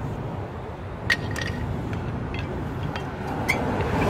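A few light metallic clicks and clinks of brake hardware being handled at the front caliper bracket of a 2006 Lexus RX400h, with worn-out pads just removed, over a steady low background rumble.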